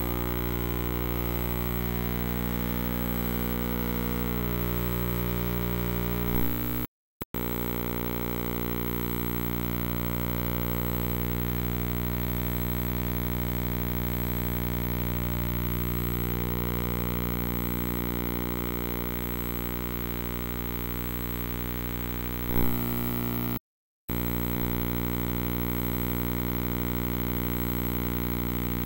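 Steady electrical hum with a buzzy overtone series, on the soundtrack of a transferred game film that carries no live sound. It cuts out briefly twice, each time just after a click.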